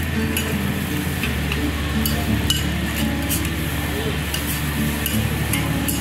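Two metal spatulas scraping and tapping quickly and irregularly on a hot flat-top teppanyaki griddle as fried rice is tossed and stirred, the rice sizzling.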